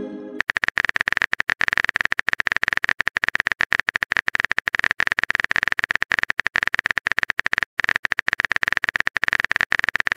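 Rapid keyboard-typing clicks from a chat app's typing sound effect, with one brief pause about three quarters of the way through. The tail of a short message chime is heard at the very start.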